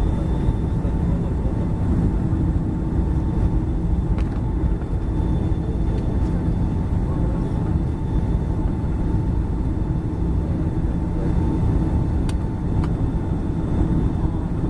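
Steady cabin noise inside a Boeing 757-200 with its engines running: an even rumble with a few steady hums, and a couple of faint clicks.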